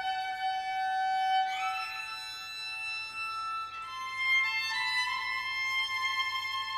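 Music: a slow melody of long held high notes, changing note a few times, with a short upward slide about one and a half seconds in.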